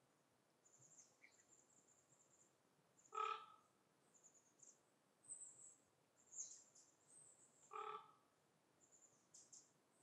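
Quiet forest ambience with birds giving thin, very high-pitched calls again and again. Two short, lower calls, the loudest sounds, come about three seconds and eight seconds in.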